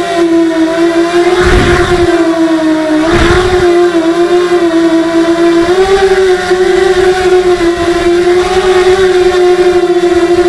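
Mini X 260 quadcopter's four brushless motors and 5-inch propellers whining steadily in flight, the pitch wavering slightly with the throttle. Two brief low rumbles come in the first few seconds.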